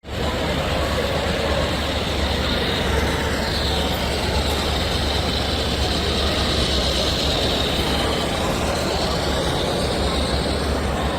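A train running, a steady rumble under a high whine that drops in pitch about three seconds in and climbs back up near the end.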